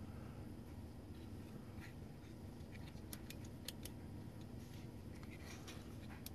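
Quiet room with a low steady hum, broken by a few faint small clicks and taps as the little plastic line-following robot car is handled.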